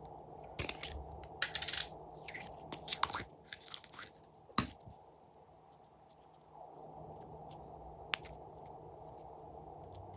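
Slime being squished and kneaded by hand, giving a run of crunchy crackles and pops in the first half, then a quiet stretch and a single click near the end.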